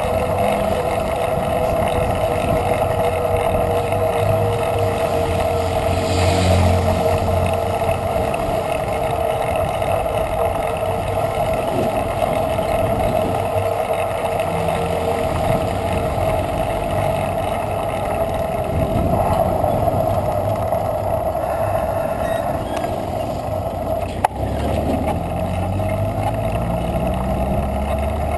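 Steady wind and road noise picked up by a camera riding on a moving bicycle, heard as a constant rumbling hiss. Passing motor traffic adds a heavier rumble briefly about six seconds in and again near the end, and there is one sharp click about 24 seconds in.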